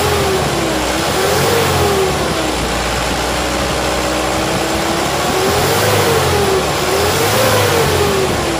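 Mitsubishi Canter four-cylinder diesel truck engine running with its engine cover off, revved up and back down about four times with a steadier stretch in the middle. It is running after an injection pump repair with a replaced timer, and the mechanic judges the sound smooth and the engine likely still normal.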